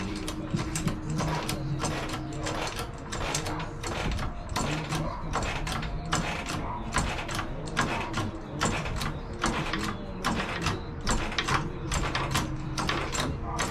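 Floor jack being pumped to raise a car: a steady run of metallic clicks and creaks, about three a second.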